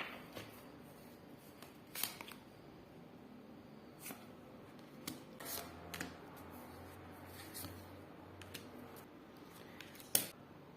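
Tarot cards being handled: faint, scattered clicks and taps as cards are drawn and laid down, a sharper tap near the end.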